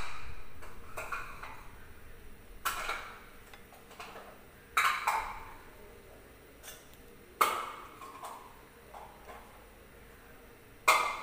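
A spoon clinking against a mixing bowl while stirring a thick batter: several sharp knocks a second or two apart, each with a short ringing tail.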